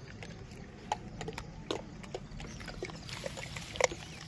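Gray langurs eating dry maize and chickpeas scattered on concrete: soft, irregular clicks and crunches as grains are picked up and chewed, the sharpest about four seconds in. A faint low steady hum sits underneath.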